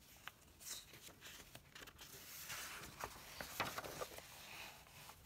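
Faint rustling of a picture book's paper page being turned, with a few soft clicks.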